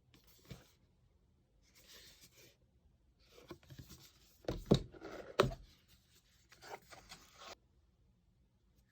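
Merchandise and packaging being handled during a parcel unboxing: short bouts of rustling and rubbing, with two sharp knocks a little under a second apart near the middle as the loudest sounds.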